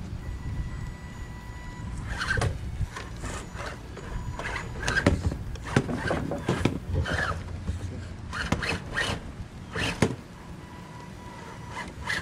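1/10-scale RC crawler, a Carisma SCA-1E '81 Range Rover, crawling over loose wooden boards: irregular knocks and clatter of its tyres and chassis on the wood over a low motor drone. A thin steady electric whine sounds for the first two seconds and again near the end.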